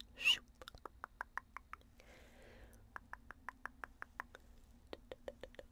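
Quick runs of dry tongue clicks, several a second, each click pitched a little differently. A short breathy hiss falls between the two runs, and the last clicks are lower.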